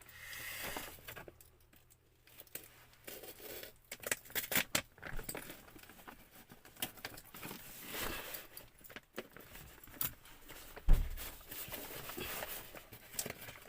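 Parcel packaging being handled and opened: irregular rustling, crinkling and small clicks, with one loud thump about eleven seconds in.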